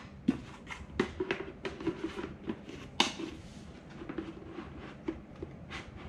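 Hard plastic parts of a humidifier clicking and knocking as they are handled and the water tank is set onto the base, with a sharper click about three seconds in.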